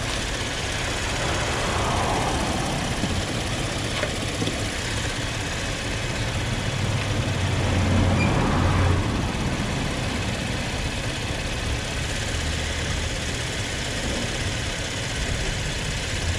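A car engine idling steadily with a low hum.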